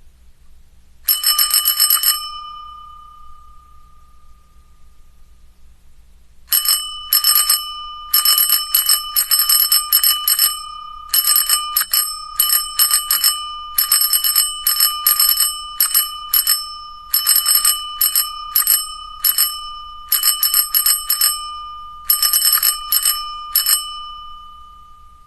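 Bicycle bell rung in quick flurries of strikes, each ring a bright metallic tone that hangs on between strikes. One flurry comes about a second in; after a pause of several seconds, many short flurries of two to four rings follow one after another until near the end.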